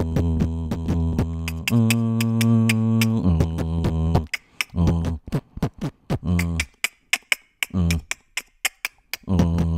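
Fast footwork dance track playing: quick hi-hat ticks over heavy bass notes, with chopped, stuttering vocal samples. About four seconds in, the bass drops out, leaving choppy stabs and ticks. The full beat comes back near the end.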